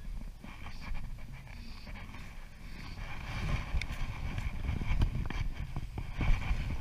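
Wind rumbling on a head-mounted camera microphone, with scattered knocks and rustles from handling the fly rod and moving on the bank, a few of them sharper in the second half.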